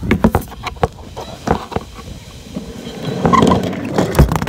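Phone microphone handling noise: a run of knocks and rubbing as the phone is pressed against skin and clothing, growing into a louder scuffle with a heavy thump near the end.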